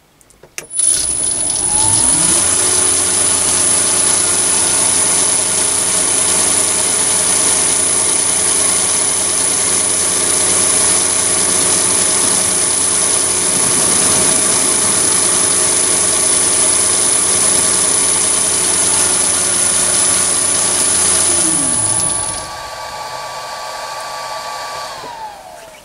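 Chinese mini lathe's motor starting up with a rising pitch, then running steadily with a high whine as it spins the three-jaw chuck. About 21 s in it winds down in pitch, and a fainter whine carries on until near the end.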